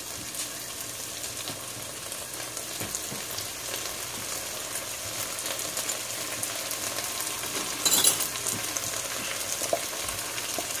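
Chopped bell peppers, onion and tomato sizzling in oil in a nonstick pot, a steady crackling hiss with one short louder crackle about eight seconds in.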